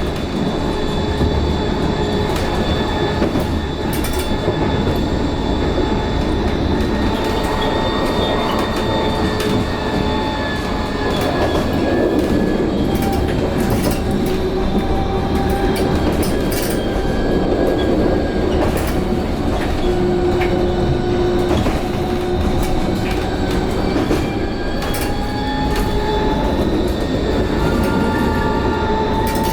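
Vossloh Tramlink light-rail tram running along the track: a steady rolling rumble, with several high whining tones that drift slowly in pitch, and scattered sharp clicks from the rails.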